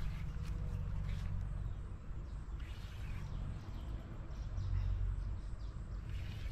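Steady low outdoor rumble, with faint bird chirps scattered through it.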